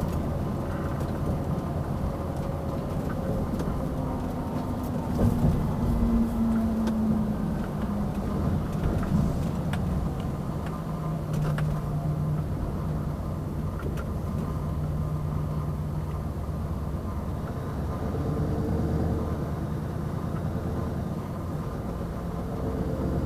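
Scania 770S 16-litre V8 diesel truck engine running on the move. Its note drops somewhat about five seconds in and settles lower, with a brief knock near the start of that change.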